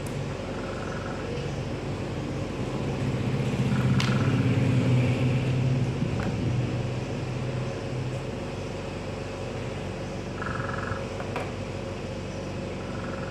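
Steady low motor rumble that swells louder for a few seconds in the middle, with two sharp clicks as a cordless drill's planetary gearbox parts are handled, and a few short high chirps every few seconds.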